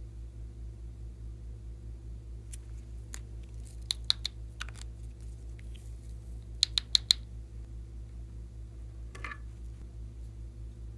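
Hard plastic clicks and snaps as small plastic toy containers are handled and pulled open: a few light clicks, a sharper cluster about four seconds in, and a louder quick group of four near seven seconds. A steady low hum lies underneath.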